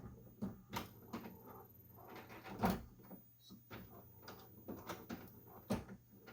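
Epson WF-7720 inkjet printer's mechanism clicking and knocking as it runs its power-on cleaning cycle, with a louder knock about two and a half seconds in and another near the end.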